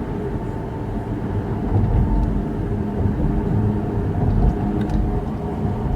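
A car driving along a street, with a steady low engine and road rumble.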